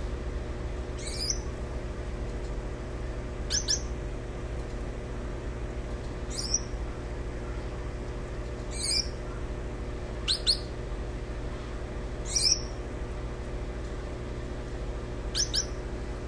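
Gouldian finches giving short, high chirps, about seven in all, one every two to three seconds, some of them doubled.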